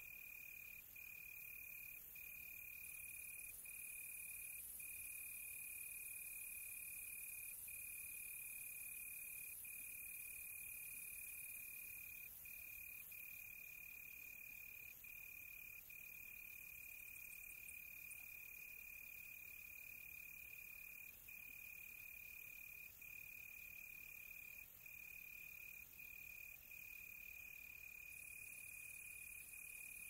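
Crickets trilling faintly: one steady high-pitched trill, broken by brief pauses every second or two, over a faint high hiss.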